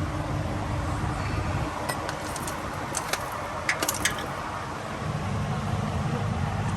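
Several sharp metallic clinks of tools and metal parts being handled, bunched about two to four seconds in, over a steady low hum.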